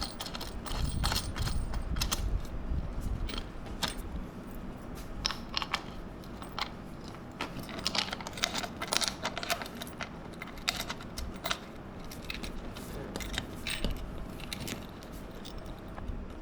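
Irregular metallic clicks and clinks of screws and small metal chair parts being handled and fitted, with no steady rhythm.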